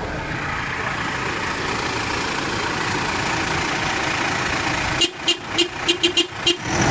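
Steady vehicle engine noise, then near the end a rapid string of about eight short vehicle horn toots.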